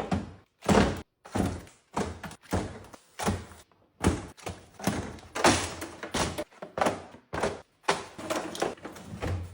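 Groceries being set down and moved about on refrigerator shelves: a run of thunks and knocks, several a second, in short bursts that cut off abruptly.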